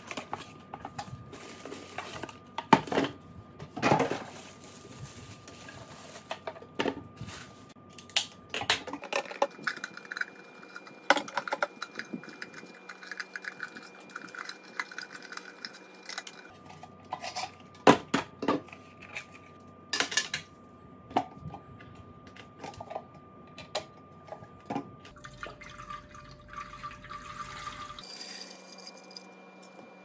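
Cardboard box opened and the plastic parts of a humidifier handled: scattered clicks and knocks of the plastic tank, lid and base being set down on a wooden table. Near the end, water is poured into the clear tank.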